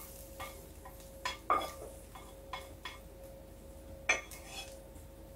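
Wooden spatula scraping and knocking against a frying pan as fried onions are pushed out onto a plate: a run of light knocks, the loudest about a second and a half in and again about four seconds in.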